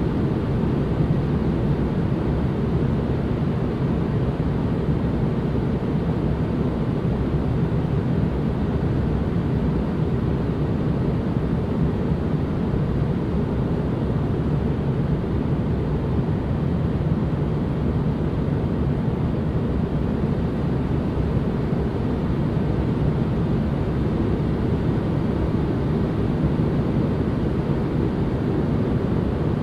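Steady white-noise ambience: an even, deep rushing noise, heaviest in the bass and dull in the highs, holding level without any change.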